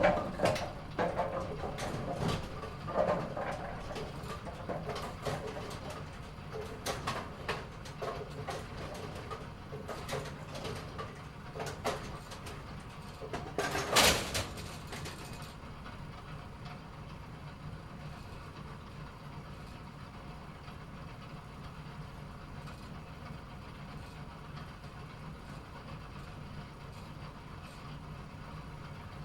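Bowling alley pinsetter setting pins: irregular clattering and knocking of pins and machinery, with one loud clunk about halfway through, over a steady mechanical hum that carries on alone after the clatter stops.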